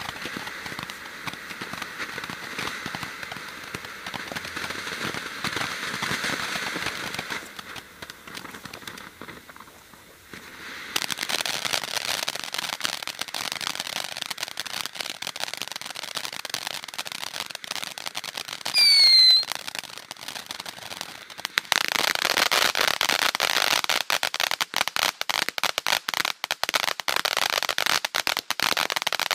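Frisky Starburst ground-fountain firework burning: a steady hiss of spraying sparks that dips around eight seconds in, then returns with crackling. A brief loud falling whistle comes just before the two-thirds mark, after which dense crackling takes over to the end.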